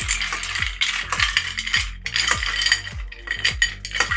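Bar spoon stirring ice cubes in a glass: continuous clinking and rattling of ice against glass and metal. A steady low beat of background music runs underneath.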